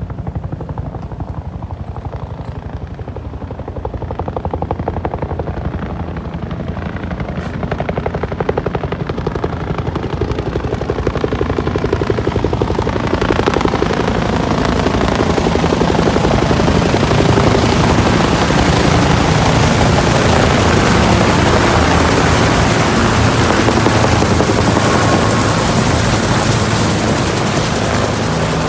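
Police helicopter flying over, its rotor beat growing steadily louder as it approaches and passes overhead, loudest in the second half, then easing slightly near the end.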